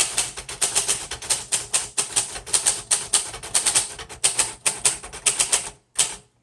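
Steady fast typing on a 1938 Royal Model O portable manual typewriter: a quick run of sharp keystrokes, several a second, with the typebars striking the platen. The run stops near the end.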